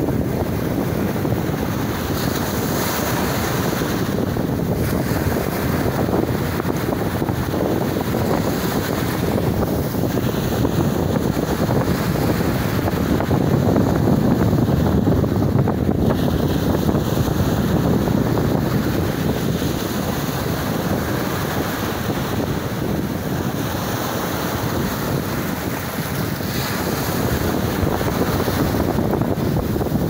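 Sea waves breaking and foam washing up the shore in a steady rush, swelling a little about halfway through, with wind buffeting the microphone.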